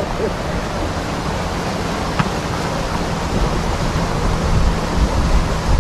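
Wind buffeting the microphone: a steady hiss with a gusty low rumble. There is a single faint click about two seconds in, and a low steady hum joins about halfway through.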